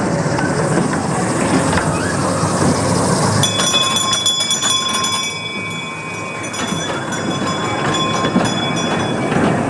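A small ride-on miniature train rolling past on its track with a low rumble. From about three and a half seconds in, its wheels give off a steady high-pitched squeal that lasts almost to the end.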